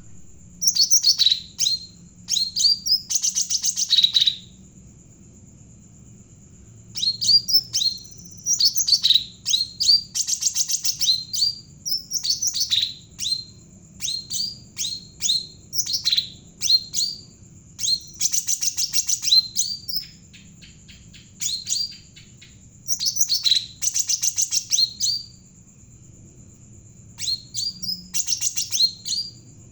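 A Javan cucak ranting songbird singing vigorously: phrases of rapid, high chirping notes, many opening with quick downward slurs, repeated every few seconds with short pauses between. A faint steady high whine runs underneath.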